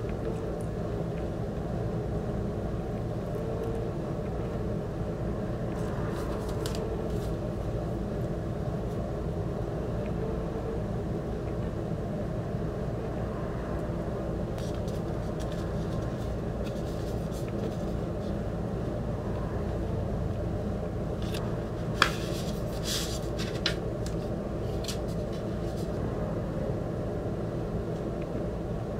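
Steady low background hum, with intermittent crinkling and rustling as a shrink-wrapped cardboard CD package is unwrapped and opened and the disc taken out. A sharp click comes about three quarters of the way through.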